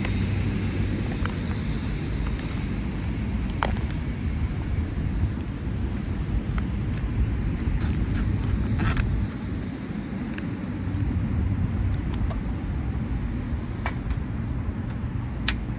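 Steady low rumble of distant engines, with a faint hum that dips about nine seconds in and then comes back. Scattered light clicks and rustles of things being handled close by.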